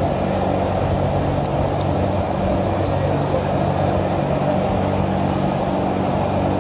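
Steady mechanical hum of running shop machinery, with a handful of light metallic clicks in the first half as snap ring pliers work a snap ring onto a gear pump shaft.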